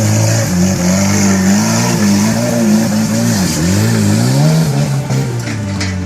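Off-road 4x4 engine revving, its pitch rising and falling repeatedly as the throttle is worked, with sharp drops a few times.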